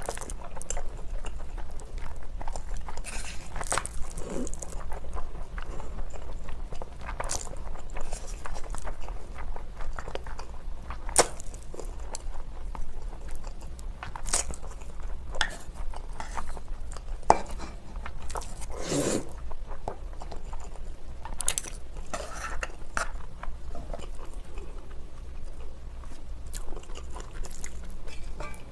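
Close-miked eating of spicy cold noodles: slurping, biting and wet chewing, in a string of short mouth sounds.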